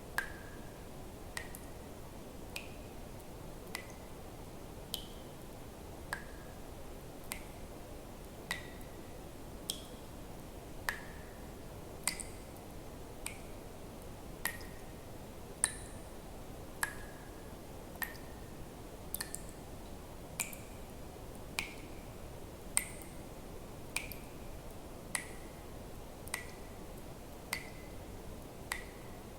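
Water drops falling at an even pace, about one every 1.2 seconds, each a sharp plink with a short ringing note whose pitch changes from drop to drop, over a faint steady hiss.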